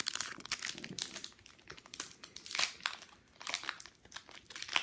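Foil wrapper of a Pokémon trading-card booster pack crinkling in sharp, irregular crackles close to the microphone as it is handled and torn open.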